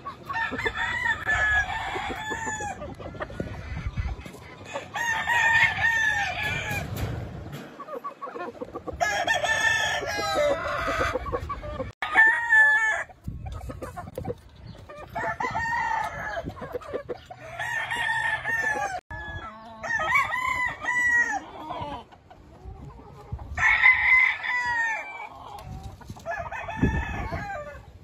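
Gamefowl roosters crowing in turn, one long crow every few seconds, about eight in all.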